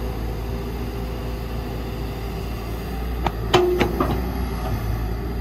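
Excavator's diesel engine running steadily with a deep drone, broken about three and a half seconds in by a quick run of four sharp knocks.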